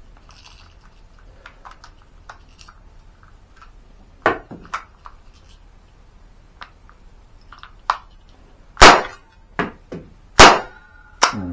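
A!CTION C96 Red9 cap-firing model gun: a few handling clicks and knocks, then two sharp cap shots about a second and a half apart, the loudest sounds, each with smaller mechanical clicks around it. A last sharp click near the end comes as the gun jams, its bolt riding up onto the lock frame.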